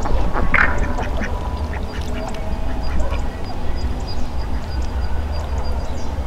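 A short animal call about half a second in, with a few fainter calls after it, over a steady low hum.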